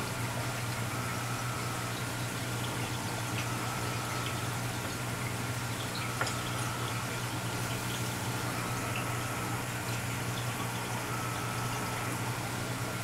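Steady running-water sound of a reef aquarium's circulation: water trickling and bubbling over a constant low hum from its pumps, with a few faint ticks.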